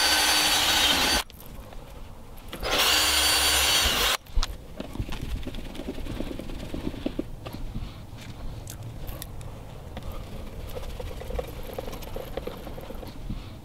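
Cordless drill-driver running in two short bursts of steady whine, driving in the screws of the curtain's press studs. The first burst stops about a second in, and the second runs from about three to four seconds in. After that come faint rustling and small clicks of hand work with a screwdriver.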